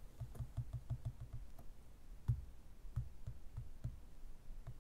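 Soft fingertip taps typing on a phone's touchscreen keyboard to enter a new device name. A quick run of taps comes in the first second and a half, then scattered taps follow, with one a little louder about two seconds in.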